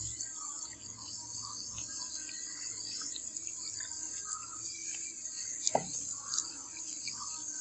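Liquid pouring into a plastic tub over a rusty die-cast toy car near the start, then fizzing and crackling with many small bubble pops as it foams around the rusty metal. A sharper click with a brief falling squeak comes about two-thirds of the way through.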